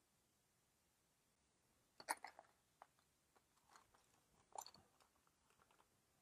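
Wooden colored pencils clicking and rattling against each other as a handful is sorted through: a few light clicks about two seconds in, another cluster about four and a half seconds in, otherwise near silence.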